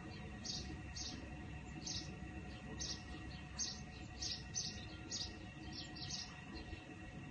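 Short high-pitched chirps from a small animal, about a dozen at irregular intervals, over a faint steady tone.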